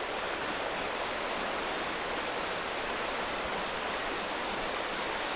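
Steady rushing of a small creek's flowing water, an even hiss with no pauses or changes.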